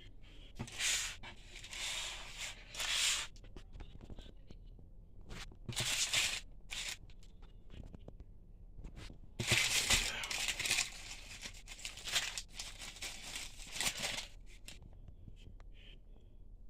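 Paper food wrappers rustling and crinkling in several short bursts as McDonald's sandwiches and packaging are handled and unwrapped.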